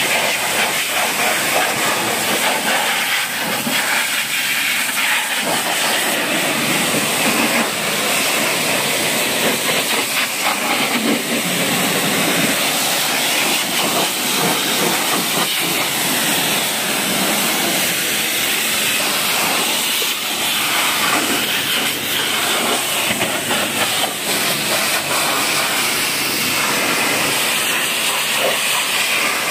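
High-pressure washer jet spraying water onto a car's body panels and windshield, a steady loud hiss with the water spattering off the metal and glass.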